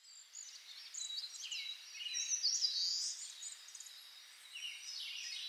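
Faint nature ambience of small birds chirping and twittering over a soft hiss.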